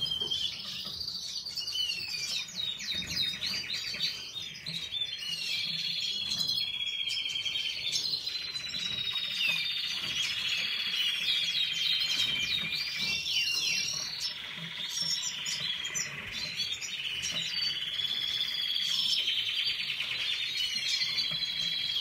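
Domestic canary singing a long, unbroken song of chirps, sliding whistles and rapid trills.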